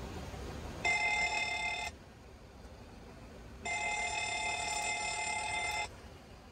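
Boeing 737 cockpit electronic alert tone sounding twice, a steady multi-tone ring cut off cleanly each time: first for about a second, then for about two seconds, over a low steady flight-deck hum.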